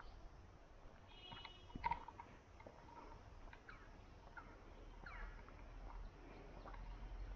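Quiet forest ambience with scattered short bird chirps and calls, some falling in pitch, and a sharp click just before two seconds in.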